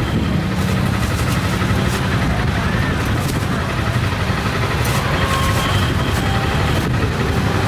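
Busy street-market ambience: a steady engine hum under background chatter, with the crinkle of thin plastic bags being opened and a few sharp clicks.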